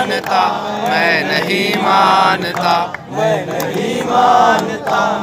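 A man's voice chanting lines of an Urdu poem into a handheld microphone, in a sung recitation of long, drawn-out phrases.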